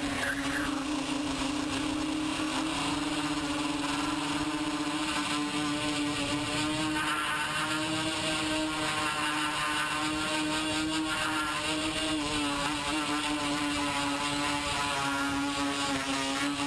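TBS Discovery quadcopter's brushless motors and propellers in flight, a steady buzzing drone whose pitch wavers slightly as the throttle changes, heard through the onboard camera's microphone.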